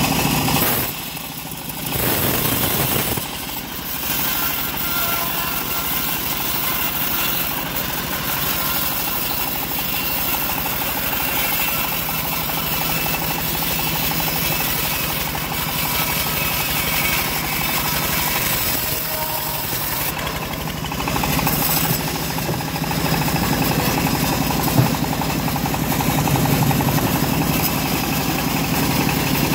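Homemade bandsaw mill running steadily, its blade cutting lengthwise through a teak log. The level dips briefly about a second in and again around three seconds.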